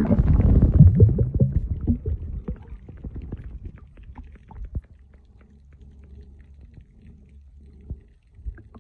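Muffled underwater sound through a submerged iPhone's microphone in seawater. Water churns heavily against the phone for about the first two seconds, then settles to a faint low rumble with scattered small clicks.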